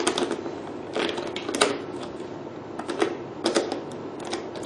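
Metal clicks and knocks of a chrome handle holder being moved and fitted on a beauty machine's plastic housing, a string of irregular sharp clacks.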